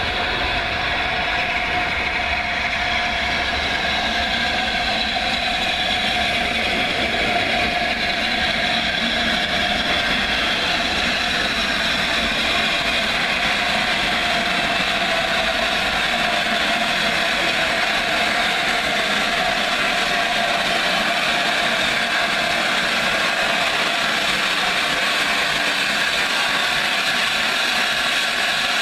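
LNER A4 Pacific steam locomotive 60009 Union of South Africa, a three-cylinder 4-6-2, and its coaches running through the station. The running noise is steady and even, with a held ringing note mixed in.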